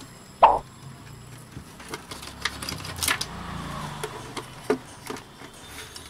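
Scattered clicks, scrapes and knocks of a CRT television's main circuit board and its cables being handled and set into place, with one louder knock about half a second in.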